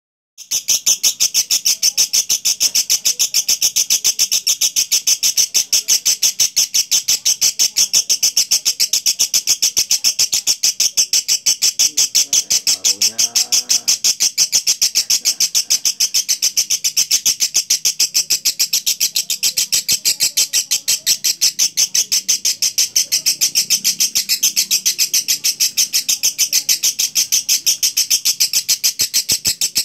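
Lovebird singing one long, unbroken chattering trill ('ngekek'), a fast, even pulse of shrill notes that starts about half a second in and runs without a break until it stops suddenly at the end.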